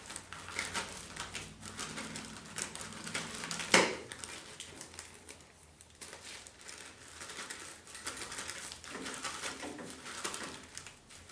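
A plastic zip-top bag of strawberries and liquid being kneaded by hand, crinkling and squishing with many small crackles and clicks. One sharper click comes a little before four seconds in.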